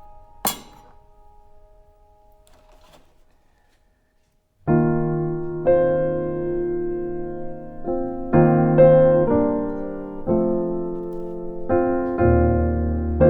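Background music of slow, sustained piano chords. A single sharp knock comes about half a second in, the notes fade to near silence around four seconds in, and a new passage of chords starts soon after.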